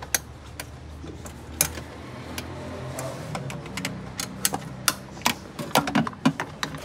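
Irregular plastic clicks and knocks as a car's air filter housing lid is handled and fitted back over the intake, over a faint low steady hum.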